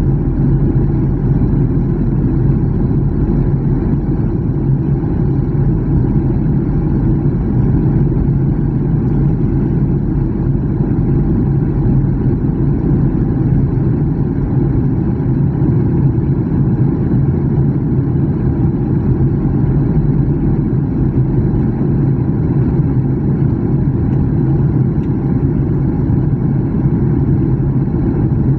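Airliner cabin noise during descent: the steady low rumble of jet engines and rushing air, with a constant low hum underneath.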